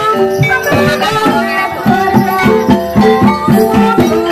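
Javanese gamelan music accompanying an ebeg (kuda kepang) dance: rapid kendang hand-drum strokes, some bending in pitch, over ringing pitched notes in a steady rhythm.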